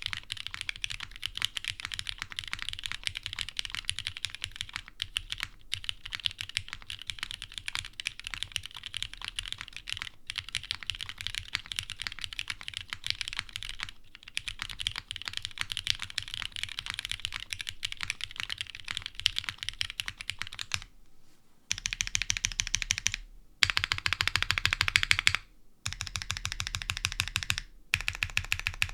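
Typing on a custom TGR x Singa HK Unikorn mechanical keyboard with lubed Cherry Ultraglide Black linear switches and GMK keycaps: a steady run of keystrokes. From about three-quarters of the way in, it changes to four short bursts of louder, very even rapid keystrokes with brief pauses between them.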